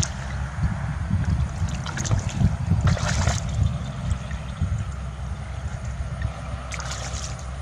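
Water sloshing and splashing over a constant low rumble, with brief louder splashes about three seconds in and again near the end.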